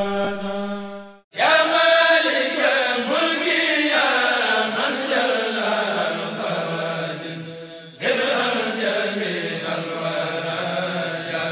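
A Mouride kourel, a group of men, chants a khassida in unison on a held note over a low drone; it is cut off abruptly about a second in. A different chanted passage follows, starting with sliding pitches, and it changes abruptly again about eight seconds in to held chanting over a steady low drone.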